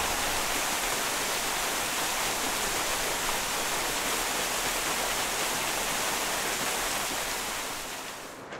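Small waterfall splashing steadily in an even rush of water, fading out near the end.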